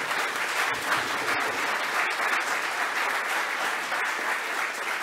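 Audience applauding, a steady dense patter of many people clapping.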